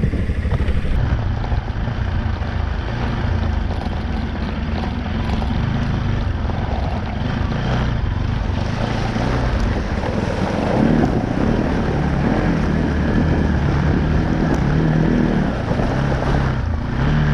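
Motorcycle engine running at low speed over rough ground, with wind buffeting the microphone and rushing noise that gets louder about two-thirds of the way through.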